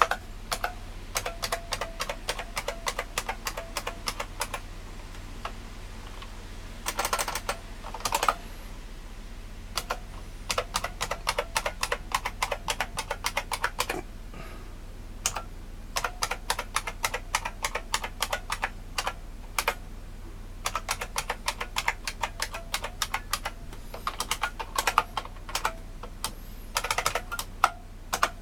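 Typing on an IBM Model M 1391401 keyboard: its buckling-spring keys click in quick runs, broken by short pauses. A low steady hum runs underneath.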